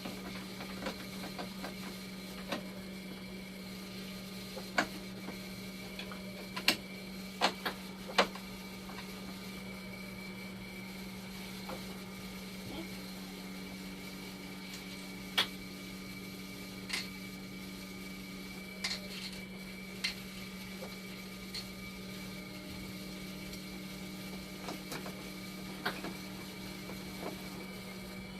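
Dialysis machine running on the bench with a steady hum and a faint high whine, while parts and tools click and tap irregularly as it is worked on. A low tone sounds twice, for about five seconds each time, in the second half.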